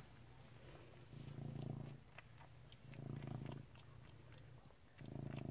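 Domestic cat purring softly in slow swells, about one every second and a half to two seconds, with faint wet clicking as he suckles on his blanket like a pacifier.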